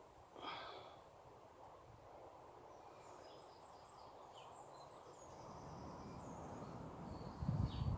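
Faint rural outdoor ambience with small birds chirping on and off, a single short bird call about half a second in, and a low thump near the end.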